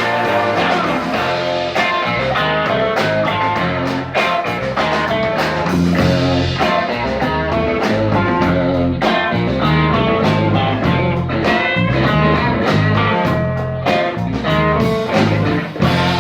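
Blues-rock band playing, with guitar to the fore over bass and a steady drum beat.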